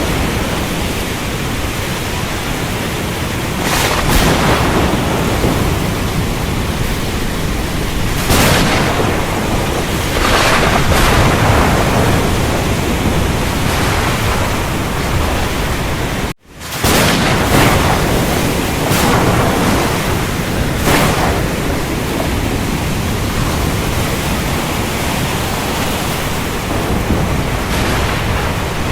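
Steady heavy rain with low rolling thunder, swelling louder several times. The sound cuts out for an instant a little past halfway, then comes straight back.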